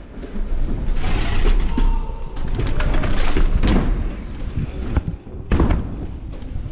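Mountain bike riding in an indoor bike hall: a steady rumble of tyres and ramps, with several knocks and thuds, the loudest about five and a half seconds in.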